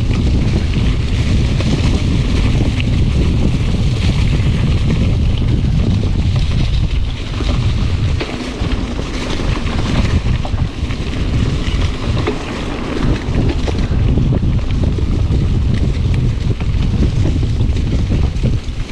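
Wind buffeting the microphone of a camera on a moving mountain bike: a loud, gusty low rumble with constant small clicks and rattles from the ride over rough ground. It eases briefly a little under halfway through.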